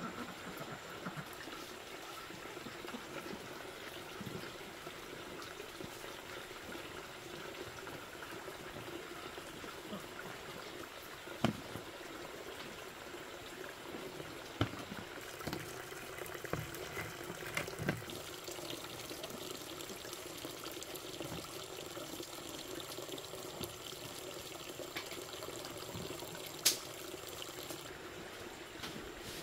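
Steady running, trickling water, with a few sharp clicks scattered through it as a vegetable is sliced by hand into a plastic bowl.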